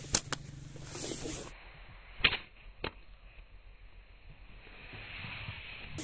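Slingshot shots: a sharp snap of the rubber bands being released just after the start, with a lighter click right after, then another sharp snap about two seconds in, followed by a lighter click half a second later.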